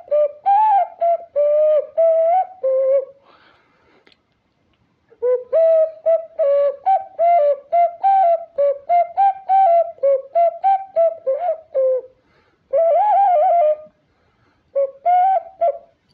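Ocarina playing a melody in short, separated notes, grouped into phrases with a pause of about two seconds after the first phrase and one longer wavering note near the end.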